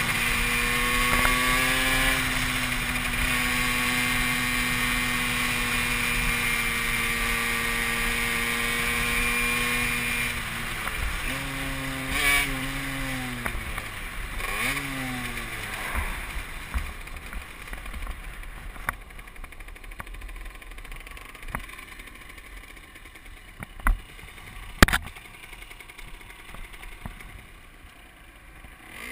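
Derbi Senda moped engine holding a steady note at cruising speed with wind noise, then falling in several steps as the bike slows, before settling to a quiet low running. Two sharp knocks come a few seconds before the end.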